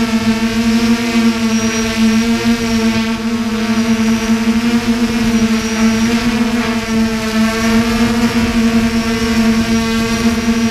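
F330 quadcopter's electric motors and propellers, a steady buzzing hum heard from a camera mounted on the frame. The pitch wavers slightly as the motors adjust to hold the quad in the air.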